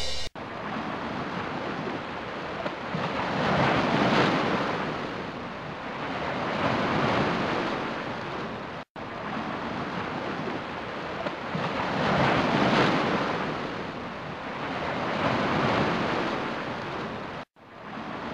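Ocean surf: waves washing in and falling back in slow swells about every three to four seconds. The sound cuts out for a moment twice.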